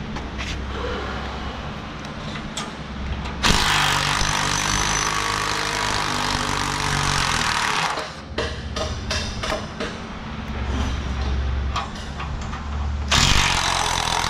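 A handheld power tool running in two bursts, a long one of about four seconds and a short one near the end, with separate metal clicks between them over a steady low hum.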